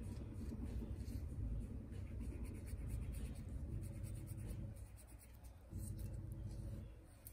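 Nail file rasping across the edge of a big toenail in repeated back-and-forth strokes, with a short pause about five seconds in.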